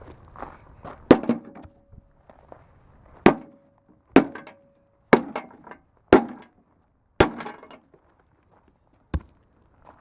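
Hammer blows on the metal of a stripped lawnmower, about seven sharp strikes roughly a second apart, with a longer gap before the last.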